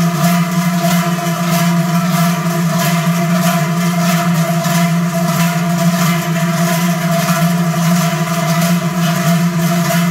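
Dozens of large Swiss cowbells (Treicheln) swung together in rhythm: a dense, even clanging about three strokes a second over a steady deep drone.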